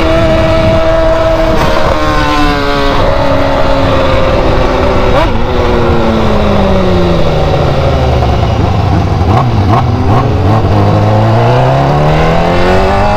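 BMW car engine with a very loud exhaust, driving through the gears: the engine note jumps and steps a few times in the first half, then falls slowly as the revs drop and rises again near the end.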